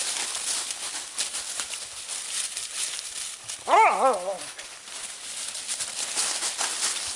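Dry fallen leaves crackle and rustle underfoot as the dogs and the person filming run through the leaf litter. About halfway through, one of the Entlebucher dogs gives a single short call with a wavering pitch, lasting under a second; it is the loudest sound.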